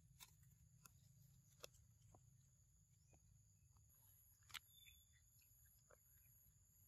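Near silence: faint outdoor ambience with two steady, thin high tones and a few soft clicks and taps, the clearest about four and a half seconds in.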